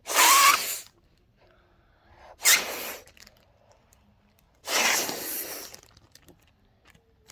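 Three breaths blown hard into a Ziploc bag through a small hole, each a breathy rush of about a second, the last the longest.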